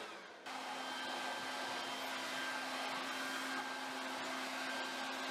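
Corded electric leaf blower running steadily, blowing acorns and nesting debris out of a car's engine bay. About half a second in the sound drops briefly, then the blower runs on steadily with a low hum under its rushing air.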